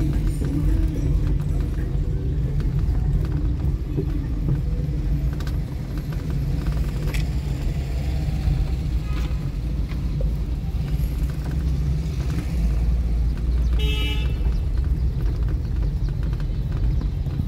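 Street traffic: vehicle engines running in a steady low rumble, with one brief car-horn toot a few seconds before the end.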